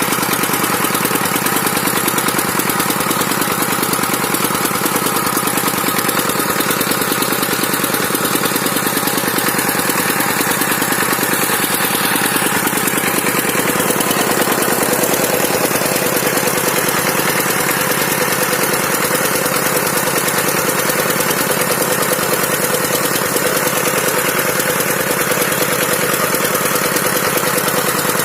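Dongfeng 12 hp single-cylinder diesel engine running steadily with a fast, even knock, driving an NS 100 irrigation water pump.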